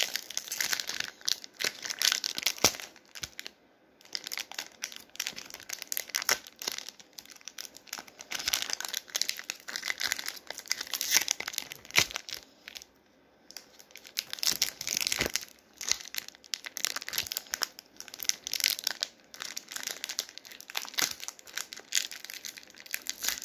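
Foil wrapper of a sealed Pokémon TCG Fusion Strike booster pack crinkling and crackling in irregular flurries as it is gripped and pulled at by hand, with tearing sounds. The pack resists opening. The crackling pauses briefly about 4 seconds in and again about 13 seconds in.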